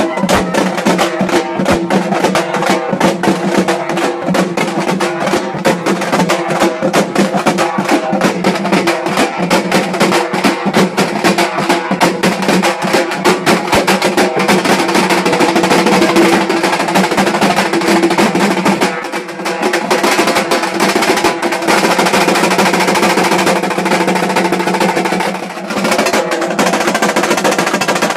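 Halgi ensemble: several large frame drums beaten with sticks, playing a fast, dense rhythm together, with a smaller drum among them. The playing drops back briefly twice, in the last third.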